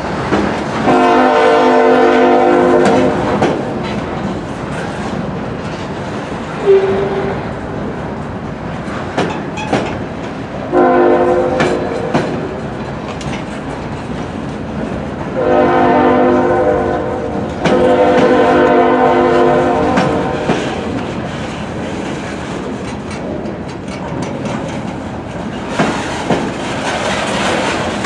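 Norfolk Southern freight locomotive's air horn sounding four blasts, the second shorter than the others, over the continuous rumble and clickety-clack of loaded flatcars rolling past.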